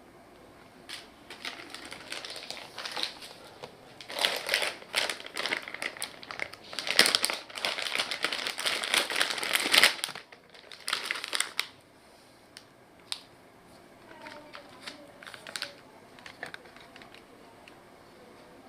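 Packaging crinkling and rustling as it is unwrapped by hand, in dense crackly bursts for the first ten seconds or so, then a few scattered light clicks and rustles.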